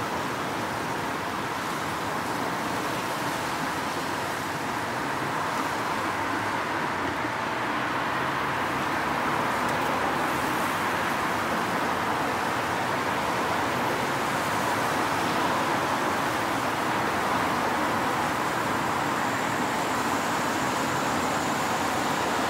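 Steady road traffic: cars moving along the roads and junction, a continuous wash of tyre and engine noise that swells slightly over the first several seconds.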